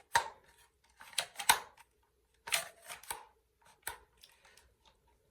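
Sharp clicks, knocks and scraping of a Glock 19 with a mounted weapon light being pushed into a tight-fitting plastic Safariland-style holster.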